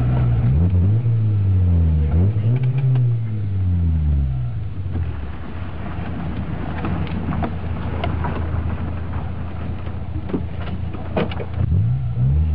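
Trabant with a 1.3-litre engine and a new exhaust system, heard from inside the cabin. It revs up and down a few times in the first few seconds, then runs lower and steadier with a few sharp clicks, and revs again near the end.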